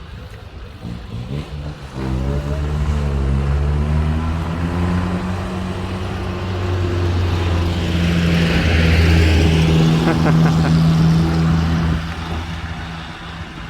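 An engine running close by. It comes in loudly about two seconds in with its pitch shifting, holds a steady note, swells loudest about eight to ten seconds in, then drops away near the end.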